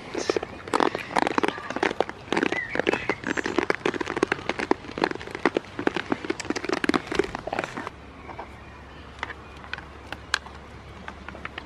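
Goats nibbling and chewing food from a hand right at the microphone: a dense, irregular run of crunching clicks that thins out to scattered clicks about eight seconds in.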